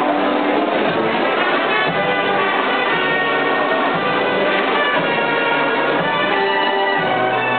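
Live band playing a waltz, brass to the fore, with a low bass note about once a second marking each bar.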